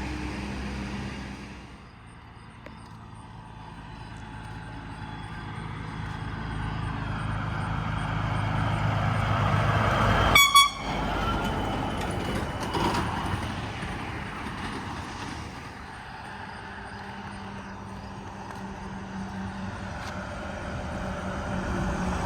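A truck approaching and passing on the road, its rolling noise swelling and then fading, with one very short, high-pitched horn toot about halfway through as it goes by.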